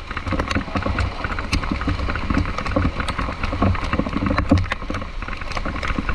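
Road traffic in the rain: a steady low rumble of vehicle engines and tyre noise, scattered with many short clicks.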